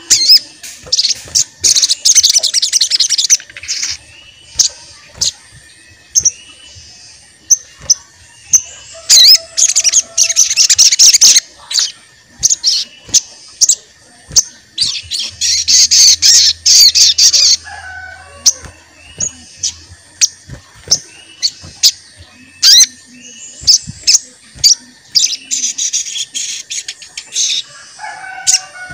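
Sogon songbird singing: sharp, high 'cuit' chirps repeated about every half second to a second, broken four times by two- to three-second bursts of rapid high twittering. It is a 'gacor' bird in full song, the kind of recording played as a lure to make other sogon birds answer.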